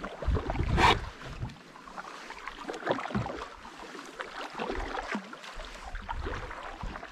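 Canoe paddle strokes in calm water: paddles dipping, pulling and dripping, with water swirling along the hull. A short, sharp sound about a second in is the loudest moment, followed by smaller, irregular splashes.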